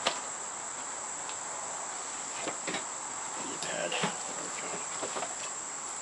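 Steady high-pitched chirring of insects, with a sharp click at the start and a few light knocks and taps from handling the fire-making gear, a couple of seconds in and again around four seconds.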